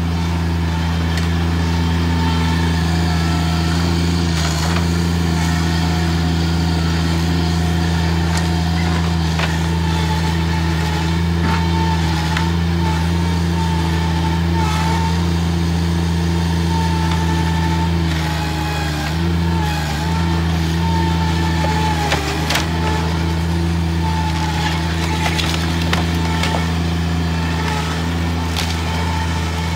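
Bobcat MT100 stand-on mini track loader engine running steadily at high revs with a wavering whine over it. About two-thirds of the way through the engine note dips briefly under load and a few sharp cracks follow as the machine pushes into the plywood shed.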